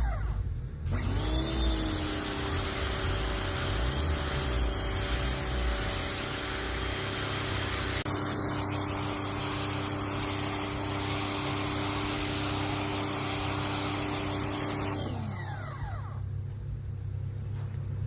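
Hyper Tough 1500 electric pressure washer: its motor spins up with a rising whine about a second in as the trigger is pulled, and runs steadily with the water spray hissing. Near the end the trigger is released and the motor winds down with a falling whine.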